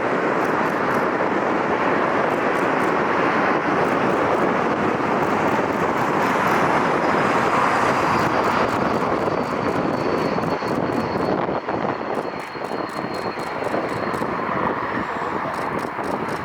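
Arriving jet airliner passing: its engine noise builds to a peak about eight seconds in and then fades, with a faint high whine slowly falling in pitch as it goes by.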